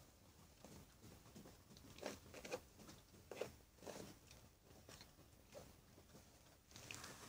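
Faint scuffling and nipping of puppies playfighting on a fabric dog bed: a handful of short rustles and mouthing sounds spread through otherwise near silence.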